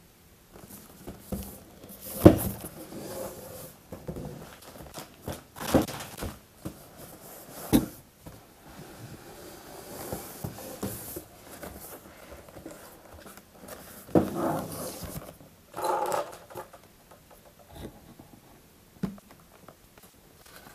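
A large cardboard box being handled on a wooden table: turned over, knocked down and slid, its flaps pulled open, with rustling and scraping between several knocks, the sharpest about two seconds in.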